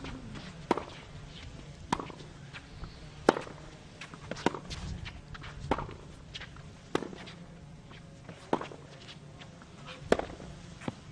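Tennis rally on an outdoor hard court: a ball hit back and forth by racket strings, about nine sharp strikes roughly every second and a quarter, with fainter clicks between them.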